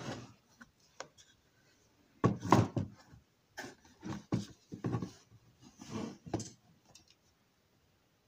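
Handling noise from a model building's wall section and a hot glue gun being moved about on a workbench: a string of short knocks and rubs, clustered from about two to seven seconds in, then stopping.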